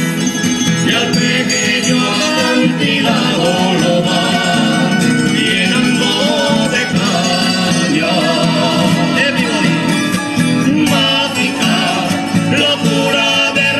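Folk group performing live: men's and women's voices singing together in harmony over strummed acoustic guitars and a small plucked lute.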